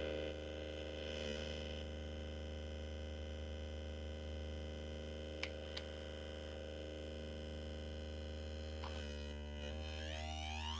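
MFOS Weird Sound Generator, a DIY CD40106-based noise synth, holding a steady buzzing drone of stacked tones. Two short clicks come a little past halfway, and the tone wavers briefly near the end.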